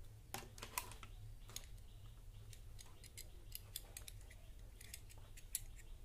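Faint, irregular small clicks and taps from hands handling electrical wires and a plastic switch box during doorbell wiring, over a low steady hum.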